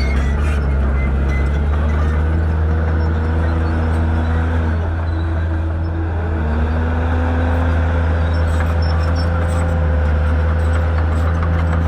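Shantui bulldozer's diesel engine running, with a steady low hum. Its pitch sags about four seconds in, then climbs back up a couple of seconds later and holds.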